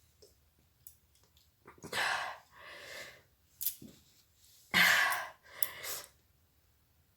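A woman sneezing twice, about three seconds apart, the second sneeze louder.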